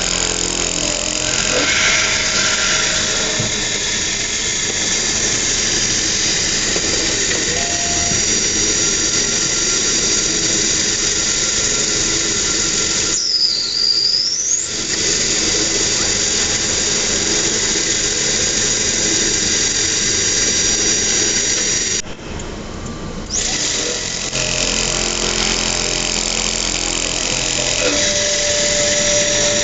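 Homemade CNC thermal friction drilling machine running, its high-speed spindle working the tool with a steady, high-pitched whine. About 13 seconds in the sound drops out briefly under a short falling-then-rising whistle, and it dips again about 22 seconds in.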